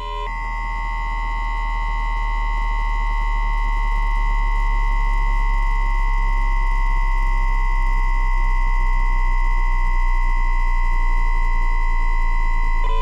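PWM whine of a JR East E2-1000 series Shinkansen's 3-level IGBT VVVF inverter and traction motors while braking, picked up by an inductor pickup coil: a steady electronic tone near 1 kHz with a second tone at 2 kHz and a low hum, which is the asynchronous unipolar mode with its 1000 Hz carrier. A moment after it starts, it switches over from the lower-pitched dipolar mode, and just before the end it drops back to the dipolar mode's lower tones.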